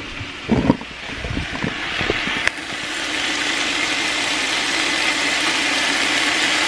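Sliced onions, peppers and root vegetables sizzling in oil in a speckled graniteware stockpot, a steady frying sizzle that grows louder about two seconds in and then holds. A few soft knocks come in the first couple of seconds.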